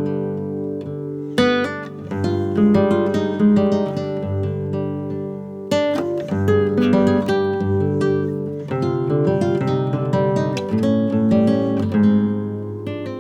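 Background music on acoustic guitar, a run of plucked notes and strummed chords.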